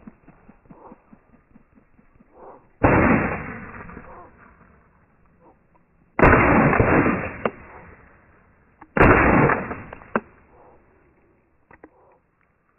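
Three shotgun shots, about three seconds apart, each trailing off over about a second.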